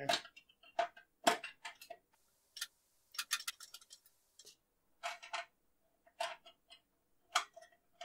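Screwdriver working the screws of the metal expansion-slot bracket on a PC case: irregular clusters of light metallic clicks and ticks.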